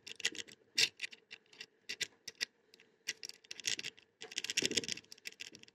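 Metal jiggler key being jiggled and raked inside a simple single-sided wafer lock: irregular light metallic clicks and scratches, thickening into quick rattling runs about four seconds in and again near the end.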